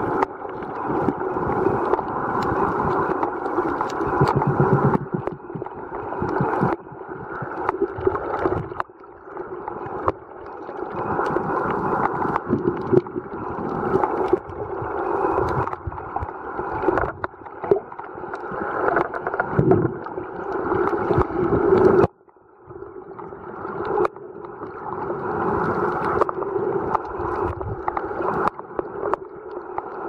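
Underwater sound picked up by a camera in shallow water: a steady rushing of water that swells and fades every two to three seconds, with many small clicks. It briefly drops away twice.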